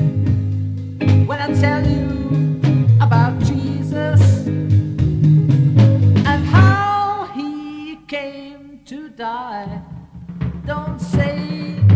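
A 1960s British beat-group song: a sung vocal line over electric guitar and a steady, repeating bass line, with the music dropping briefly about two-thirds of the way through.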